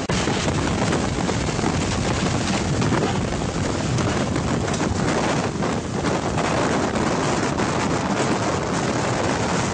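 Strong wind blowing across the microphone while a tornado is filmed: a loud, steady rushing noise.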